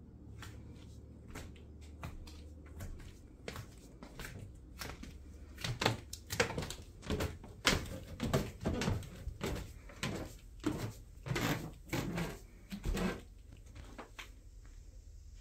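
Footsteps climbing wooden stairs: about a dozen firm footfalls, roughly two a second, after a few lighter steps across a wooden floor. Over a low steady rumble.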